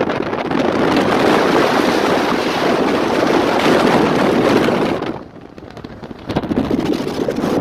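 Loud rushing of wind and road noise from a vehicle driving through a snowstorm. It dips sharply for about a second past the middle, then comes back.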